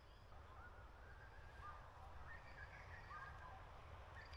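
Faint birdsong: a run of short whistled notes from birds, over a low steady rumble.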